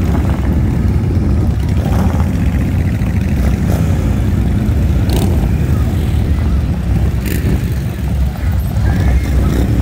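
Steady low rumble of motor vehicle engines running.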